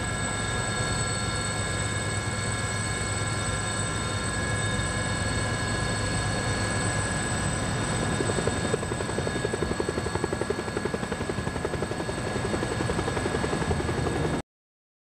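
Helicopter running close by, with a steady high turbine whine over a dense low rotor rumble. Past the middle a quick rhythmic rotor beat comes through, and the sound cuts off suddenly near the end.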